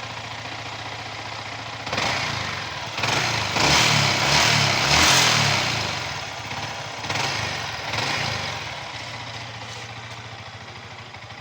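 Yamaha R15 V3's single-cylinder engine idling, then revved: one short blip, a longer rev lasting a few seconds, and two more short blips before it drops back to a steady idle.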